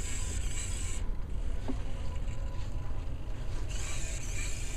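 Small continuous-rotation hobby servos driving a robot's wheels, a gear buzz that runs in two short bursts, one at the start and one near the end, over a steady low rumble.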